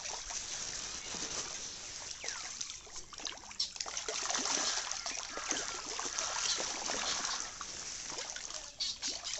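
Fish splashing and slurping at the surface of a pond, a continuous patter of many small splashes and water clicks.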